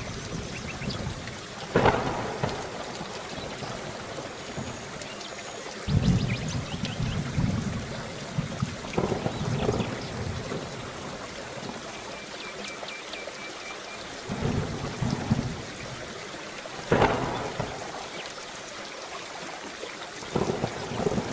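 Steady rain with thunder: a sharp crack about two seconds in and another near the end, and low rolling rumbles in between.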